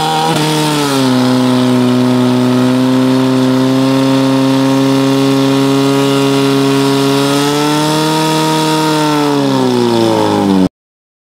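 Portable fire pump's engine revving up and running steadily at high speed, driving water through the hoses to the targets. Near the end its pitch drops, and then the sound cuts off suddenly.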